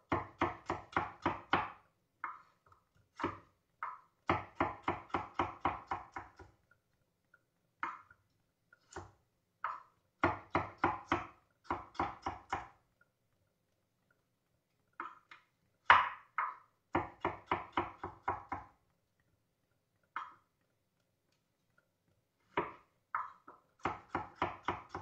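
Kitchen knife chopping a carrot on a wooden cutting board: quick runs of knocks, about five or six a second, broken by short pauses, as the carrot is cut into slices, sticks and squares. One single knock about sixteen seconds in is the loudest.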